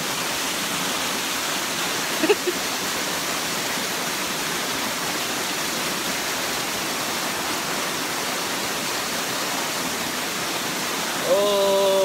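Waterfall pouring into a plunge pool, a steady rushing hiss, with one brief sharp sound about two seconds in.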